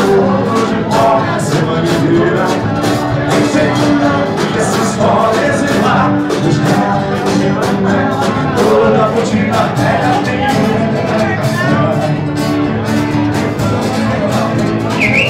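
Live music: an acoustic guitar strummed with a steady beat, and a man singing into a microphone through the PA.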